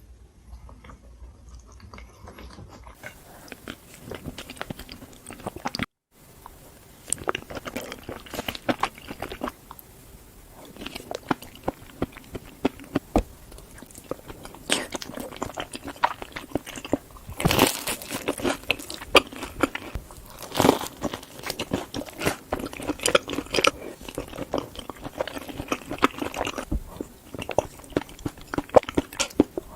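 Close-miked eating sounds of a person chewing and biting into mac and cheese: a dense, irregular run of wet smacks and sharp mouth clicks. It breaks off for a moment about six seconds in, then carries on.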